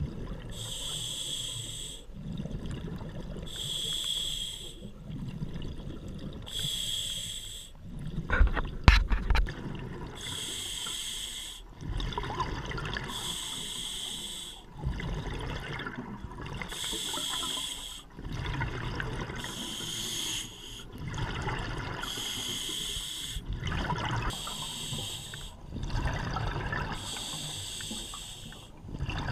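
Scuba diver's regulator heard underwater: slow, regular breathing, each exhalation a rush of bubbles about every three seconds, with quieter inhalation between. A short cluster of sharp knocks comes about eight to nine seconds in.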